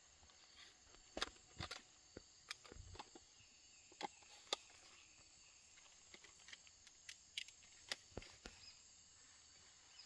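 Faint outdoor ambience: a steady high hiss with scattered sharp ticks and clicks at irregular moments. No parrot calls are heard.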